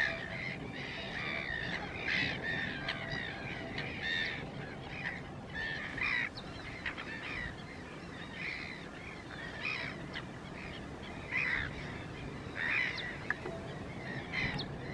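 A flock of Chilean flamingos calling: a continuous chorus of many short, overlapping calls, with louder single calls standing out every second or two.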